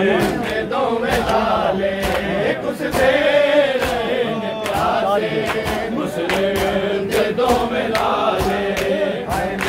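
A group of men chanting a Punjabi noha (Shia lament) together, with sharp hand slaps of chest-beating (matam) repeating irregularly under the singing.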